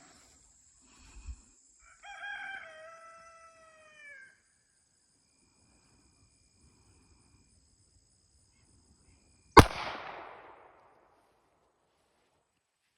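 A rooster crows once about two seconds in, its call falling in pitch at the end. Near ten seconds a single shot from a Ruger LCP Max .380 pistol rings out, by far the loudest sound, trailing off in a short echo.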